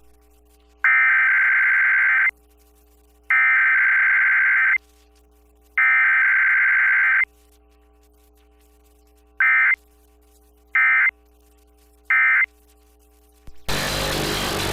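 Emergency Alert System SAME digital header: three loud, buzzy data bursts of about a second and a half each, then three short end-of-message bursts, with a faint steady hum beneath. No attention tone or voice message comes between header and end-of-message, the pattern of a required weekly test. Hissing static comes in near the end.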